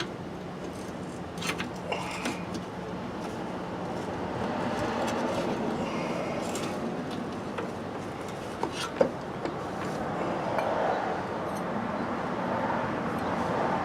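A few sharp metallic clinks and knocks of hand tools and parts being handled during Jeep front-suspension work, over a steady background rumble that swells and fades twice.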